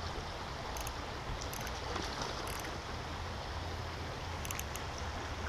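Steady rush of flowing water in a flood-swollen creek.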